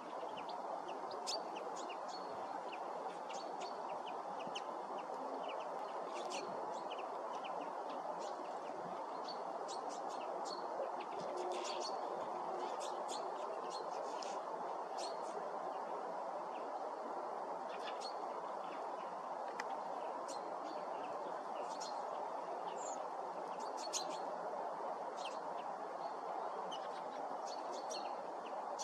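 Feeding flock of bramblings and chaffinches giving many short, high calls at irregular intervals, over a steady background hiss.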